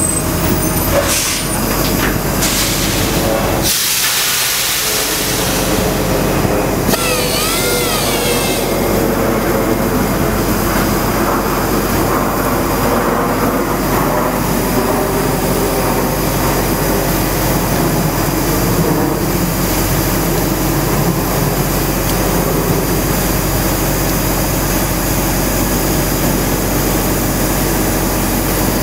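Large grinder running steadily with a loud machine hum. About four seconds in there is a burst of air hiss, and a short warbling squeal follows a few seconds later.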